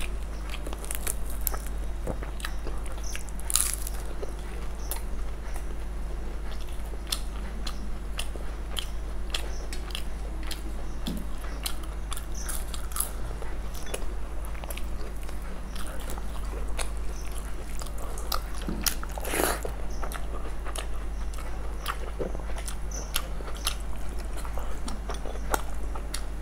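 Close-miked eating sounds of two people eating fried rice by hand: chewing with many small crisp clicks and crunches, among them crisp papad, with louder crunches about 3.5 s and 19.5 s in. A steady low electrical hum runs underneath.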